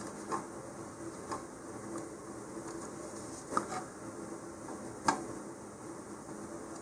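Wooden stir stick knocking and scraping against the inside of a fiberglass rocket body tube while epoxy is spread: a few faint light clicks, the sharpest about five seconds in, over a faint steady hum.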